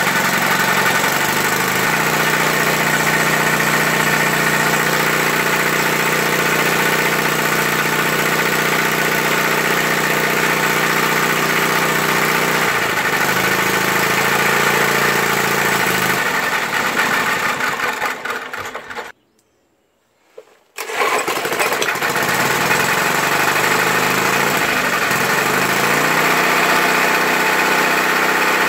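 Small lawn mower engine running steadily on gasoline while it warms up before the switch to hydrogen. About 19 seconds in it fades and cuts out for about two seconds, then runs again, and it is running on hydrogen by the end.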